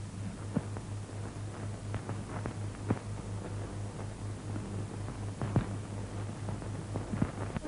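Old optical film soundtrack noise: a steady low hum that pulses rapidly, with hiss and scattered crackles and pops.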